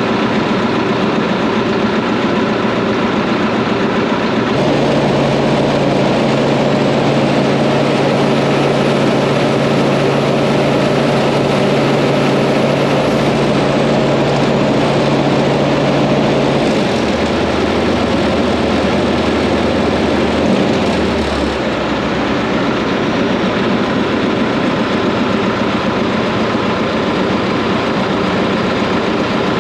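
Hitachi Zaxis 280 excavator's diesel engine running steadily, heard close to its radiator; its low hum shifts pitch a few times.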